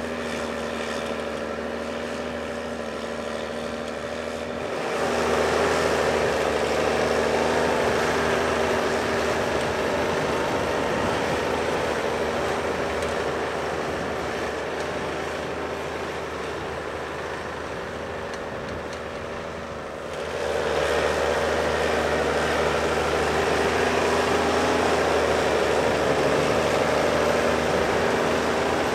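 Case IH Puma 225 CVX tractor's six-cylinder diesel running steadily under load as it pulls a six-furrow plough. It steps louder about five seconds in, eases off, then steps louder again about twenty seconds in.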